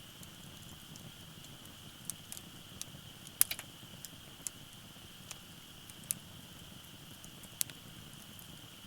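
Wood fire crackling in a fire pit: scattered sharp pops and snaps at irregular intervals over a low steady background, the loudest pop about three and a half seconds in.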